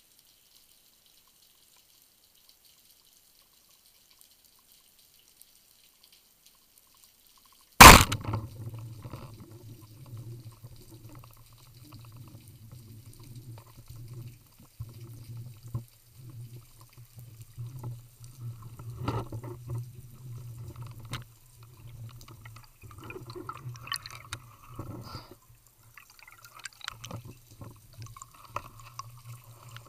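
Underwater speargun shot: one sharp, loud crack about eight seconds in, after near silence. It is followed by continuous underwater water noise with a steady low hum, bubbling and small knocks as the diver swims up toward the surface with the speared fish on the line.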